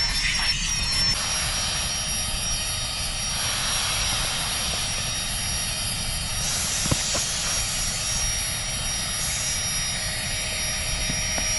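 Small battery-powered Flextail Gear air pump running steadily with a thin high whine as it inflates a Therm-a-Rest NeoAir XTherm sleeping pad. Wind rumbles on the microphone underneath.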